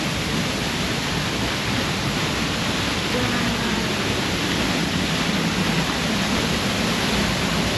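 A powerful waterfall's steady rush of falling water, a loud, even noise without breaks.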